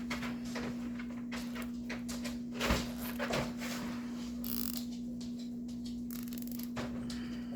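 Handling noise as hands work on doll parts: soft rustles and small clicks, with one louder knock a little under three seconds in, over a steady low hum.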